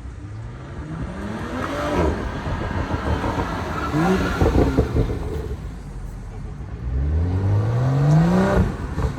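A car engine accelerating hard, its pitch climbing three times with breaks between. The last and longest climb runs near the end and then drops off.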